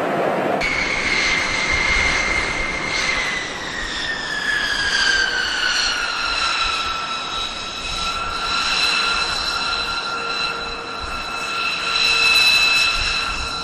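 B-2 Spirit's F118 turbofan engines running on the ground, a high jet whine over a steady rushing noise. It cuts in about half a second in; about three seconds in the whine drops in pitch, then holds steady.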